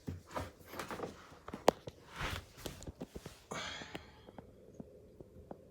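Handling noises: irregular rustles and knocks with one sharp click about a second and a half in, a brief hiss-like scrape near the middle, then only a few faint ticks.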